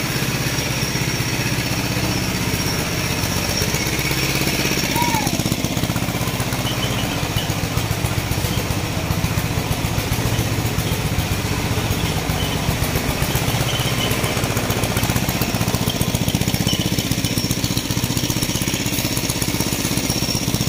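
A diesel engine running steadily with a low, even throb.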